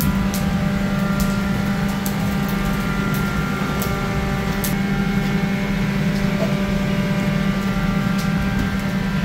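Steady mechanical hum of a motor or fan running, with sharp ticks scattered through it.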